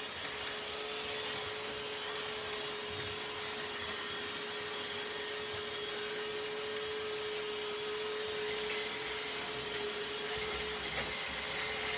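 Robot vacuum cleaner running: a steady motor hum with one constant tone and an even hiss of its suction and brushes.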